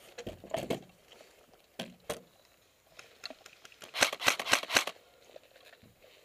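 Airsoft gunfire: scattered sharp snaps, then a rapid burst of about seven cracks about four seconds in.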